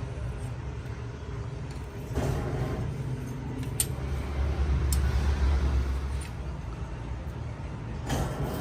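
Steady low mechanical hum of a running motor, swelling louder for about two seconds midway, with a few sharp clicks.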